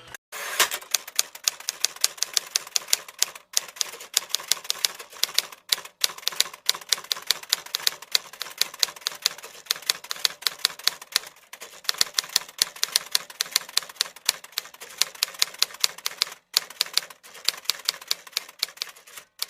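Typewriter keys striking in rapid runs of sharp clacks, several a second, with a few short breaks in the typing.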